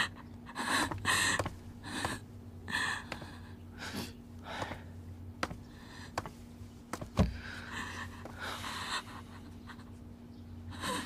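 A person breathing hard in short, uneven gasps, with a few soft clicks and one thump about seven seconds in, over a faint steady low hum.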